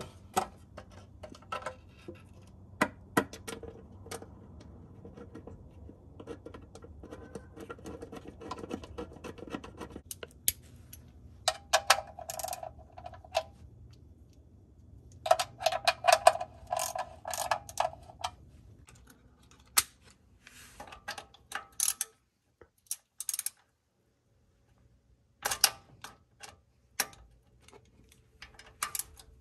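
Hand socket ratchet clicking in short bursts as bolts are undone on an automatic transmission's exposed valve body to remove the shift solenoids. Scattered single metallic clicks and taps come first, then about four runs of rapid ratchet clicking.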